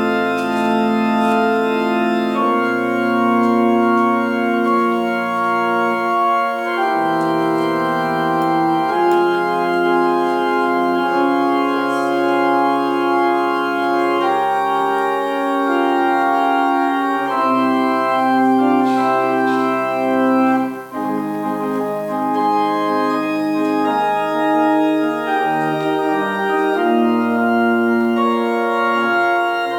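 Church organ playing a slow piece of held chords that change every second or two, with a brief break about twenty-one seconds in.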